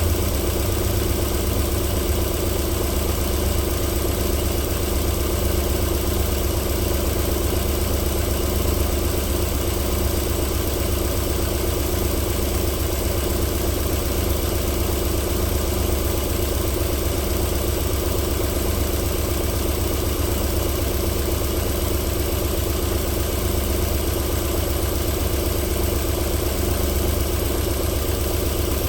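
Alfa Romeo 3.0-litre 24-valve V6 idling steadily on a cold start, running smoothly.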